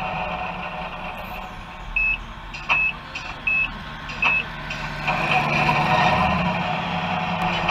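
Radio-controlled model truck's sound module giving four short reversing beeps, then its engine sound swelling from about five seconds in.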